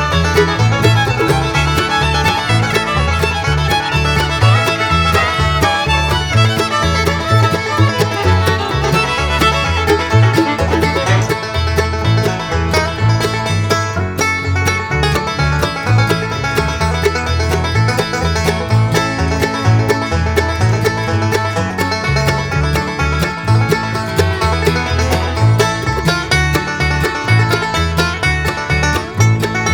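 Background music: a fast bluegrass tune with banjo, fiddle and guitar over a steady bass.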